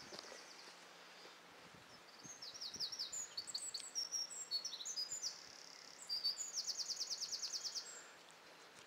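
A songbird singing: a string of quick, high, varied notes that ends in a fast, even trill of about ten notes a second.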